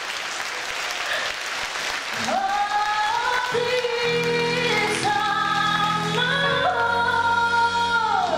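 Audience applause dies away, then a military wind band plays sustained chords that build as more instruments enter, with deep bass notes under them, before sliding down and breaking off near the end.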